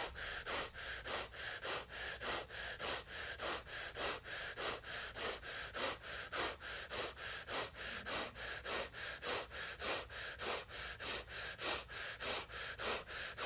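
Rapid, rhythmic breathwork breathing: short, sharp breaths at an even pace of about three and a half a second, kept up without a break.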